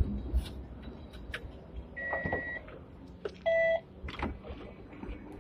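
Two electronic beeps at a tram's fare reader by the front exit. A thin, high beep comes about two seconds in, and a louder, lower, buzzing beep follows about a second and a half later, amid light knocks and rattles.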